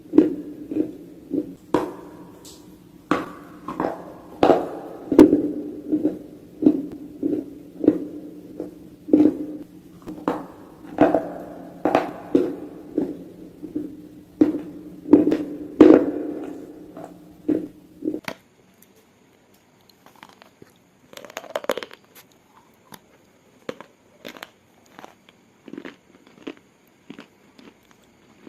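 Close-miked crunching as a person bites and chews a hard, brittle material, about two crunches a second over a steady low hum. A little past halfway it cuts to a quieter clip with sparser, sharper crunches.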